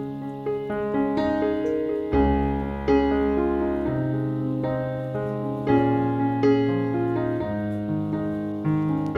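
Background piano music: slow, held notes and chords, a new one struck about every second, over deep bass notes.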